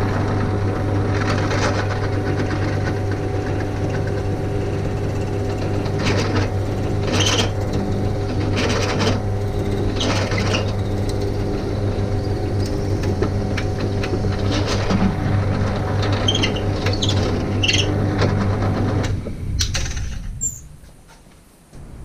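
Bench drill press motor running steadily while its bit bores a hole through a painted wooden whirligig bird body, with intermittent scraping as the bit cuts the wood. About nineteen seconds in the press is switched off and its hum dies away.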